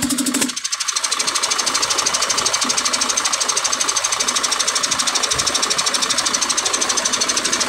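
Mercedes-Benz Actros diesel engine running with its freshly rebuilt air compressor pumping: a fast, even pulsing over a steady rush of air. The air output is strong enough that it can no longer be covered by hand, the sign of a healthy compressor.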